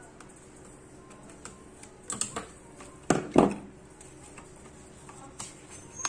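Small clicks and scrapes of a tool prying at an LCD monitor panel's frame, with louder crackling of the panel's white plastic sheets being lifted and handled about two and three seconds in.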